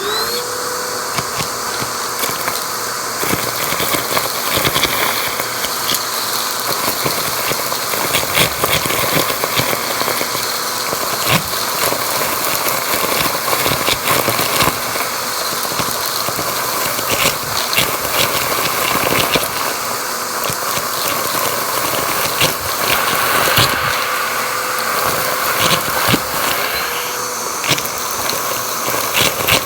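Vacuum cleaner motor spinning up and running, with a steady whine and dense crackling and clicking as crunchy debris is sucked up. Near the end the motor pitch drops briefly and rises again.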